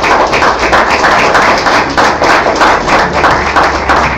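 Audience clapping steadily, a dense patter of many hands.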